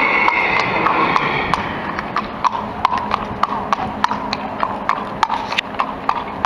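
Hooves of a Quarter Horse mare clip-clopping on asphalt at a walk, about three or four sharp hoof strikes a second.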